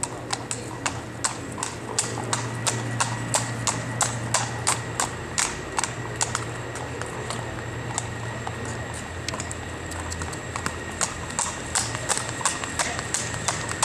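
Event horse's hooves striking the ground in a steady, even rhythm of about three beats a second.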